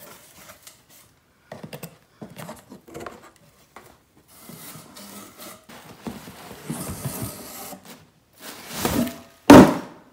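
A cardboard box being opened and handled: scattered taps and scrapes, a stretch of rustling and scraping, then a swish and a loud thump near the end.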